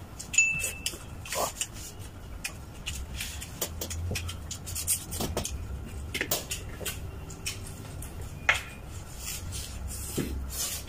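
Two people eating pork ribs with their hands: chewing, with scattered short clicks and knocks of fingers and bones against plates.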